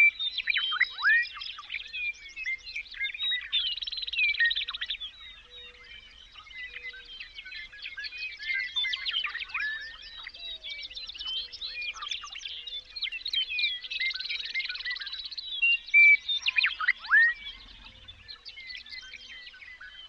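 A dense chorus of many songbirds singing at once: overlapping chirps, quick whistled notes sweeping downward, and buzzy trills, with no pause.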